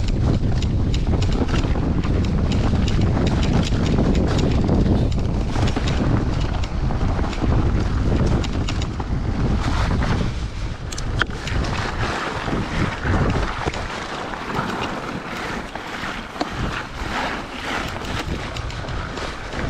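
Wind buffeting the microphone over electric mountain bike tyres crunching along a snowy trail, with the bike rattling. The low wind rumble eases about halfway through, leaving the crackle of tyres on snow and the rattling clearer.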